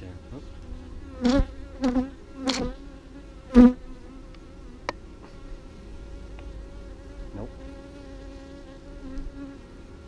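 Honey bees buzzing in a steady hum: a disturbed colony settling down. Four times in the first four seconds a single bee flies close past with a louder buzz, and there is a sharp click about five seconds in.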